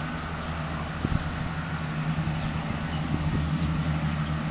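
Steady low mechanical hum, like an engine or motor running at a constant speed, over a light hiss of outdoor noise.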